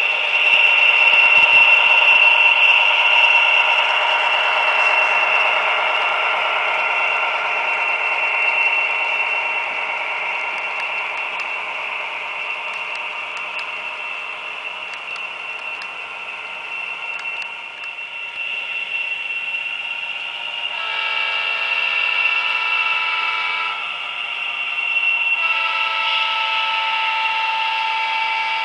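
Sound decoder of an HO-scale Atlas GP40-2W model diesel locomotive playing its diesel engine sound through a small speaker. Two long horn blasts, each of several notes at once, start and stop abruptly in the last third.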